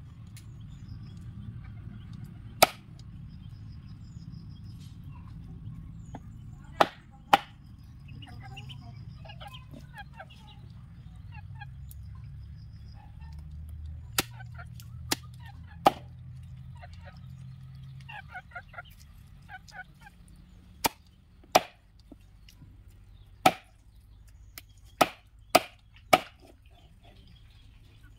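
Chicken meat and bones being chopped with a large machete-style knife on a wooden chopping board: about a dozen sharp chops at irregular intervals, several in quick succession near the end. Poultry calls in the background between the chops.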